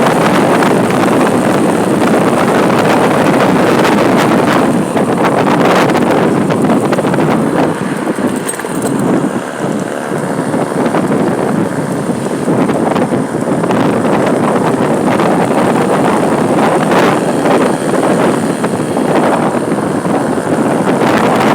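Steady road-traffic noise with wind buffeting the microphone, in a long queue of coal trucks.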